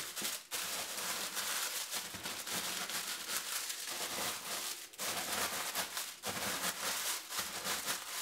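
Wooden rolling pin pressed and rolled over sugar cookies sealed in a plastic roasting bag: the cookies crunch and crackle as they break into crumbs and the plastic crinkles, in repeated strokes with brief pauses between them.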